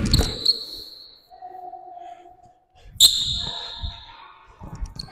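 Basketball play: the ball bounces on the court in repeated thuds, with two sharp hits, one at the start and one about three seconds in, each followed by a brief high ring that fades out.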